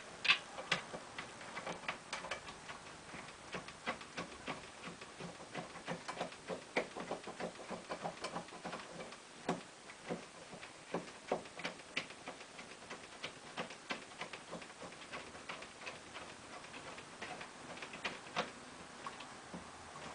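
Light, irregular clicks and taps of small metal parts being handled: bolts being lined up and fitted through a pinball back box hinge and panel. The loudest click comes just after the start.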